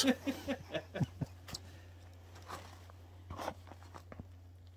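Small kindling fire just catching, giving faint, irregular crackles and snaps.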